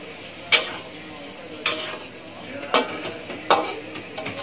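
A ladle scraping and knocking against a wok four times while a salted-squid and tofu stir-fry sizzles in its sauce over a gas flame.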